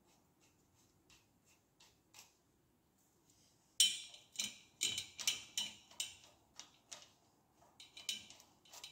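Metal screws and hand tools clicking and tapping against motorcycle parts as fasteners are fitted. Only a few faint clicks at first, then about four seconds in a run of sharp metallic clicks, two or three a second, thinning out to scattered ticks toward the end.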